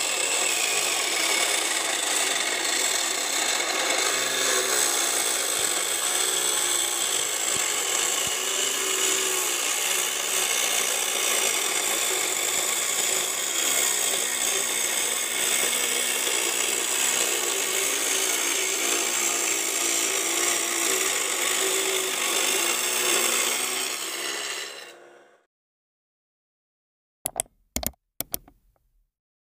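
Homemade mini wood-cutting saw running steadily and cutting wood, fading out about five seconds before the end; after a short silence come a few brief sharp sounds.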